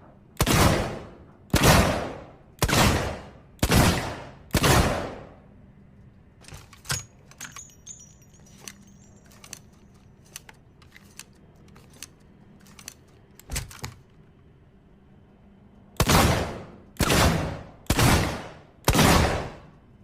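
.357 Magnum revolver fired five times about a second apart, each shot a sharp crack with a decaying tail. Then comes a long stretch of small metallic clicks and clinks with one louder click, and then four more shots at the same one-per-second pace.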